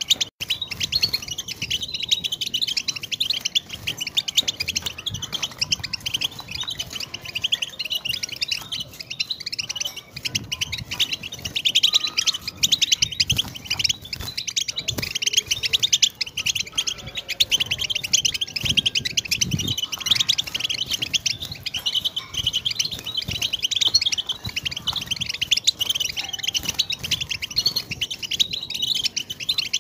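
European goldfinch singing: a long, unbroken run of rapid twittering chirps and trills.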